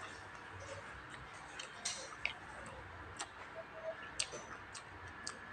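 Close-up eating sounds: a person chewing with wet mouth clicks and smacks, with a few sharp clicks scattered irregularly, the loudest about two and four seconds in.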